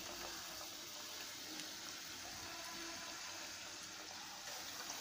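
Batter-coated sweet potato bondas frying in hot oil: a faint, steady sizzle.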